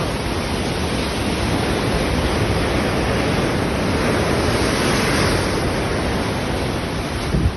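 Flood-swollen river rushing past in a steady, loud roar of churning water. A short thump near the end.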